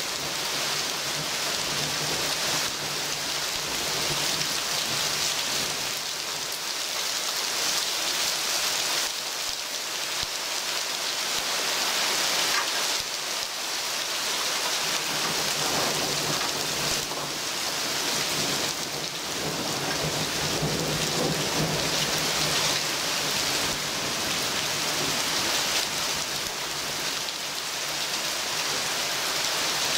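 Heavy rain pouring steadily onto trees and leaves during a thunderstorm, a dense, even hiss, with thunder rumbling low beneath it.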